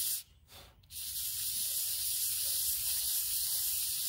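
Kawasaki ZX-10R clutch plate being rubbed by hand on 80-grit sandpaper on a flat surface: a steady hiss of sanding that stops briefly near the start and then resumes. It is cutting the glaze off a plate from a slipping clutch.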